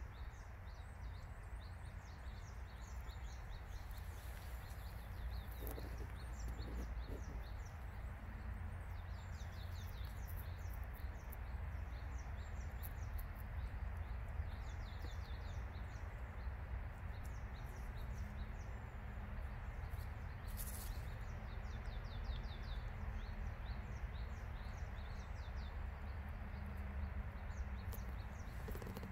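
Small birds chirping in repeated short runs of high notes over a steady low background rumble, with a few brief rustles.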